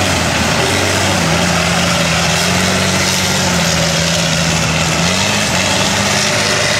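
Mega mud truck's engine running at low, steady speed as the truck rolls along, its pitch rising slightly about five seconds in, under constant loud background noise.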